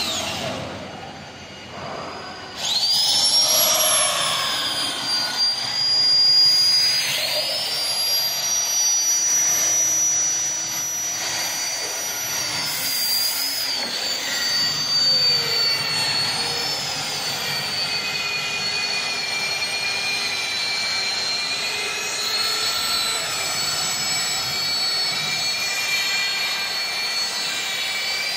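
Several magnetic-base drills run at once, boring 26 mm holes through 16 mm steel plate, their motors giving a steady high whine. A drill motor spins up with a rising whine about two and a half seconds in, and another about seven seconds in.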